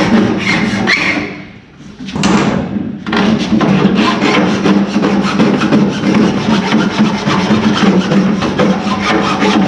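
Hand file rasping on old plastic dash trim in quick back-and-forth strokes, enlarging the opening so a radio fits. The strokes pause briefly about a second and a half in.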